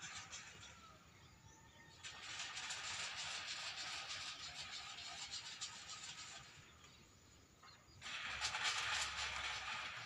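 Tin-can bird-scarer rattles strung across a rice paddy, clattering in two spells as their rope is jerked. The second spell, starting about eight seconds in, is the louder.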